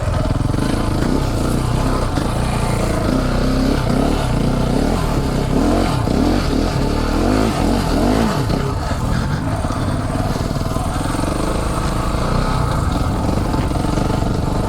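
Single-cylinder dual-sport motorcycle engine running under way, its pitch rising and falling several times as the throttle is worked, mostly in the middle of the stretch.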